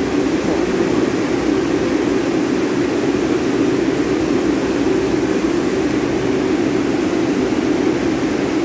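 Steady, loud drone of a subway train standing at the platform with its doors open, its equipment and air conditioning running. The sound is unbroken, with no rise or fall.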